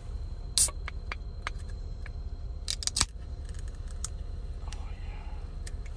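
Ring-pull tab of an aluminium energy-drink can being pried up and the can cracked open. There is a sharp click about half a second in, a few light ticks, then a cluster of snaps as the can opens around three seconds in, over a steady low rumble.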